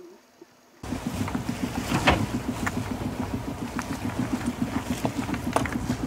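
A sailboat under way: water and wind noise along the hull, with a few sharp knocks. It starts abruptly about a second in.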